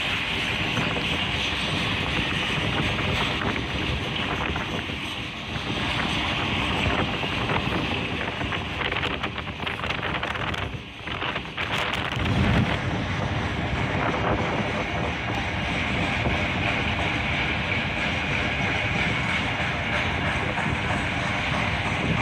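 Norfolk Southern Triple Crown RoadRailer train, highway trailers riding on rail bogies, rolling steadily past with a continuous rumble and hiss of wheels on rail. Wind buffets the microphone throughout, most strongly about twelve seconds in.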